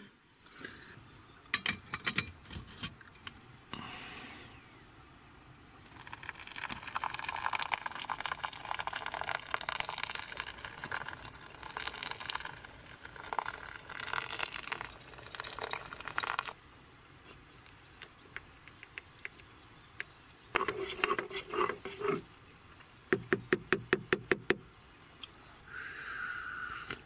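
Hot water poured from a stainless steel pot into a paper coffee filter, a steady splashing pour of about ten seconds. Around it are clicks and knocks of kitchenware, a run of quick rhythmic clinks later on, and a sip from a mug near the end.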